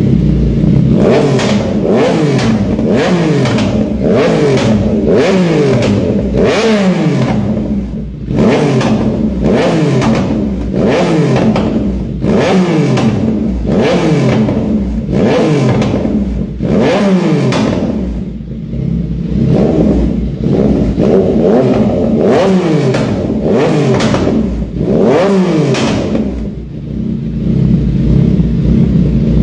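Yamaha MT-09 three-cylinder motorcycle engine with a full 'caracol' aftermarket exhaust, roaring loud as the throttle is blipped again and again, over once a second, the pitch dropping back after each rev. There are two short pauses, about two-thirds of the way in and again near the end.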